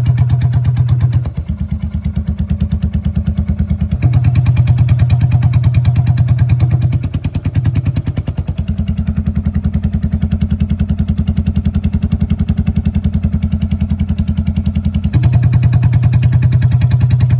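Royal Enfield Meteor 350's single-cylinder engine idling with the exhaust bend pipe removed, the open header stub giving a loud, even beat. Twice it turns quieter for several seconds, when the loose silencer pipe is held against the header outlet, and it gets loud again when the pipe is pulled away.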